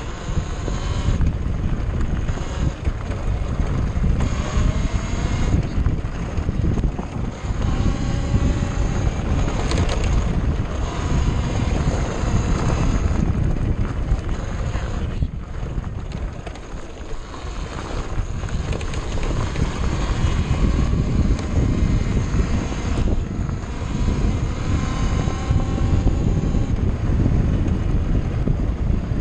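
KTM 400 EXC's 400 cc four-stroke single-cylinder engine running on the move on a dirt trail, revs rising and falling as it is ridden and easing off for a few seconds past the middle. Wind buffets the microphone throughout.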